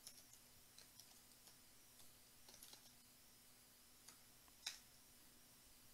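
Faint computer keyboard typing: scattered soft key clicks, one sharper about four and a half seconds in, over a faint steady hum.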